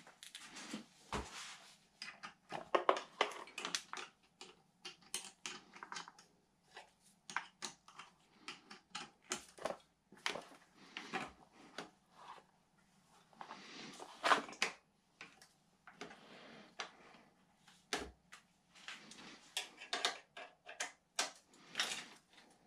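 Irregular clicks, taps and short scrapes of a small hand tool and bicycle cables being handled as the cables are pulled off a road bike.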